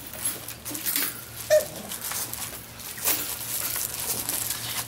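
Cavalier King Charles spaniel puppies playing: scuffling in sand and knocking plastic toys about, with one brief squeak about a second and a half in.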